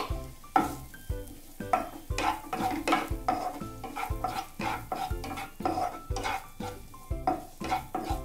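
A wooden spatula stirs chopped onions through melted butter in a nonstick frying pan, with repeated strokes and a light sizzle as the onions start to sauté. Background music with a steady beat plays underneath.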